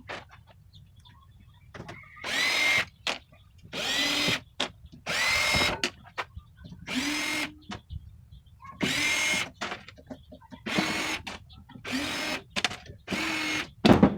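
Cordless drill/driver run in about eight short bursts, backing out the screws that hold the case on a power conditioner; each burst spins up with a quick rise in pitch and then holds steady, with small clicks in the gaps between them.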